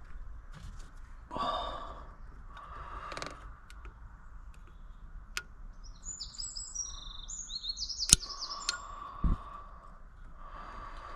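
A songbird sings a quick run of high chirping notes a few seconds apart from the work sounds. Just after it there is a single sharp click, the loudest sound, then a short dull thud, with intermittent rustling and handling noise throughout.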